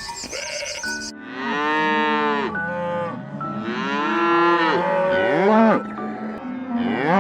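Cattle mooing: a run of long calls, one after another, that rise and fall in pitch, starting about a second in.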